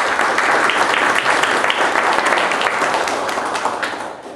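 A roomful of people applauding: dense, steady clapping that thins out and dies away near the end.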